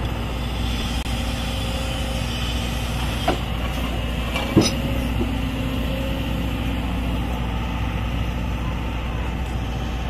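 Excavator with a hydraulic vibratory pile hammer attachment running steadily, a heavy low machine noise, with two sharp metallic knocks at about three and a half and four and a half seconds in.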